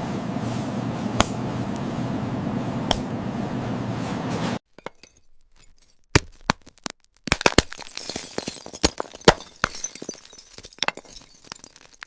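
Something brittle being crushed. A steady hiss carries two sharp clicks, then it cuts off abruptly. After that comes an irregular run of sharp crackles and glassy snaps.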